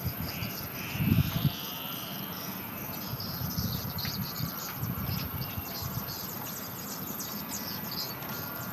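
Insects chirping over a steady high-pitched insect whine, with low rumbling noise underneath and a louder thump about a second in.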